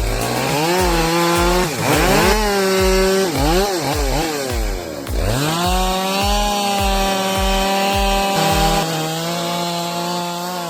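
Chainsaw running at high revs while cutting a thick trunk. Its pitch dips and climbs back several times as it bogs and recovers in the cut, then holds steady at full speed for the last few seconds. Background music with a steady beat plays underneath.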